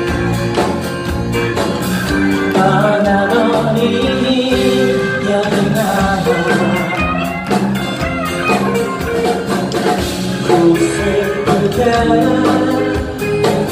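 A live band playing a slow song, with acoustic guitar, electric guitar, electric bass and drums, and a man singing the melody.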